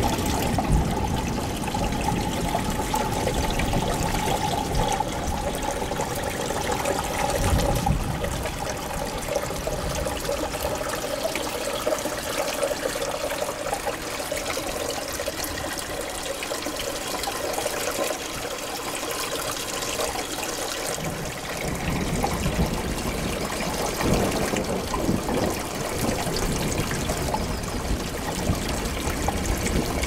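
Steady trickling and splashing of water running down the small rocky stream and waterfall of a large vivarium.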